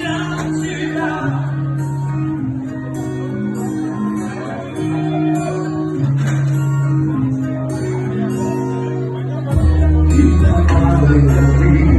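A song with acoustic guitar and a singing voice. About two-thirds of the way through it gets louder as deep bass notes come in.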